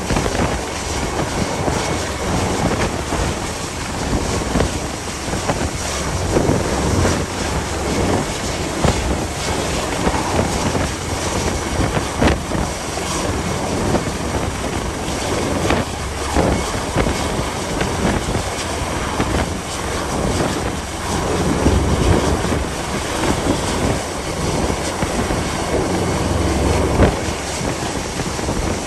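Gale-force wind buffeting the microphone: a loud, steady rush with frequent gusty thumps and a low rumble underneath.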